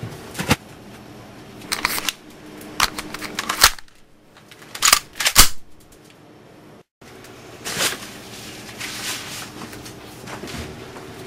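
Sharp clicks and knocks from a pistol being handled. The loudest are two clicks about half a second apart near the middle.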